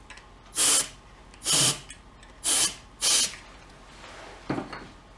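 Aerosol spray can with an extension straw, fired in four short hisses about a second apart, then a fainter short sound near the end.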